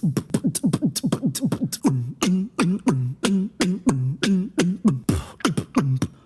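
Beatboxing: rapid mouth-percussion clicks mixed with short bass tones that drop in pitch, fast at first and slowing after about two seconds, with a short hiss about five seconds in.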